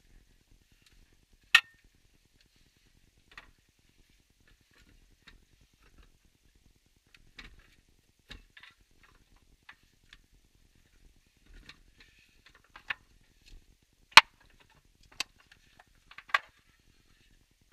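Scattered clicks and knocks of hands fitting a car battery and its terminal clamps, with no steady sound between them. The sharpest, loudest clicks come about a second and a half in and about fourteen seconds in.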